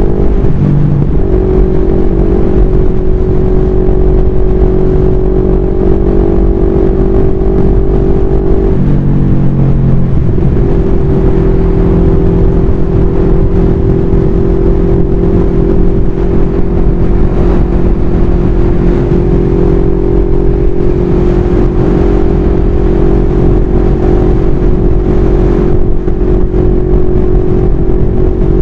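CFMoto NK400's 400 cc parallel-twin engine running steadily at highway cruising speed, heard from the rider's position over heavy wind rumble on the microphone. The engine note dips briefly near the start and again about nine seconds in, then picks back up.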